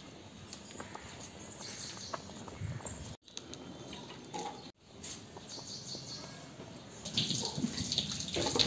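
Pot of rice at a rolling boil, the starchy water bubbling and frothing, with small pops and patters. The sound cuts out briefly twice and grows louder near the end.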